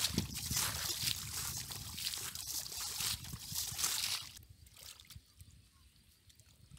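Wet mud and muddy water sloshing and squelching as hands dig and scoop through a shallow mud pool, in irregular splashes that stop about four seconds in.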